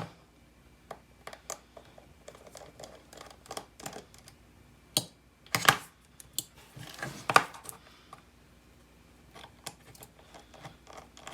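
Light clicks and taps of a small screwdriver and tiny screws being handled while taking apart an iPod Classic, with a few louder knocks about halfway through.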